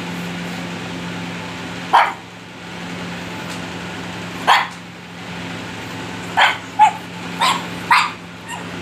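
Pug puppy barking in six short, high yaps: one about two seconds in, another a couple of seconds later, then four in quick succession near the end, over a steady low hum.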